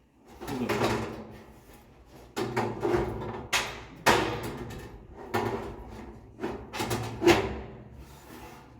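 Colorbond steel fence sheets being handled and slid into the fence rails, in about five sudden bursts of sliding, clattering metal noise that each fade away over a second or so.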